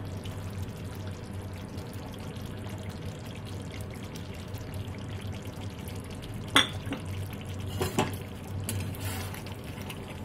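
Curry gravy simmering in a metal kadai over a steady low hum, with a metal spatula knocking sharply against the pan about six and a half seconds in and again more softly around eight seconds.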